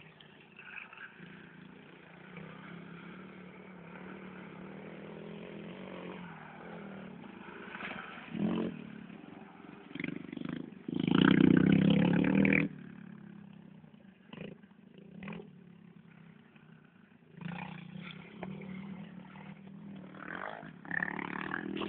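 125 cc dirt bike engine running and revving, steady at first, with a much louder stretch of about two seconds near the middle, then fading and returning near the end.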